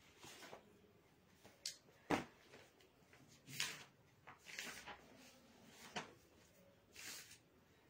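A few brief rustles and soft knocks from someone moving and handling things close to the microphone, with one sharper click about two seconds in.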